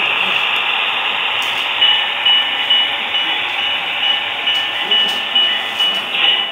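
HO scale model diesel train running on the layout's track: a steady hiss and rumble of wheels and motors. From about two seconds in, a short high ding repeats about twice a second.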